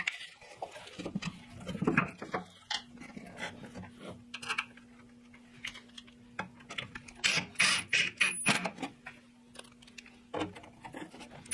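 Scattered light knocks, taps and rustles of hands handling parts and tools at the back of a contractor table saw, busiest a little past the middle. A faint, steady low hum sounds underneath in two stretches.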